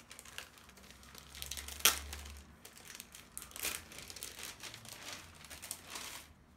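Plastic packaging crinkling and rustling as it is handled, in irregular bursts, with a sharp click about two seconds in.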